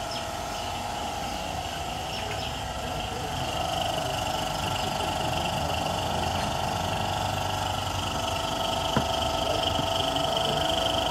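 Steady machine hum from a running engine or motor, with one sharp click about nine seconds in.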